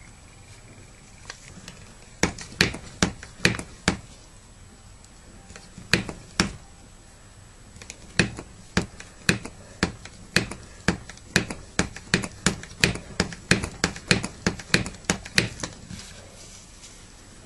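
Hand vacuum pump of a VacuumSaver food-storage canister being worked in quick strokes, a sharp click with each stroke at about two a second: a short run, a pause, then a longer steady run. The pump is drawing air out of the sealed chamber to pull the bubbles out of the resin.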